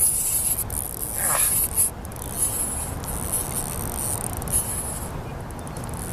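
Fishing reel being cranked fast to bring in a hooked bass, a high whirring hiss with short breaks as the winding pauses, stopping about five seconds in.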